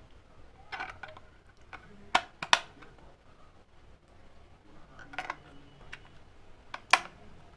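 AA batteries being handled and pressed into the plastic battery compartment of an RC car's transmitter: a scatter of sharp clicks and knocks, the loudest a pair about two seconds in and a single one near the end.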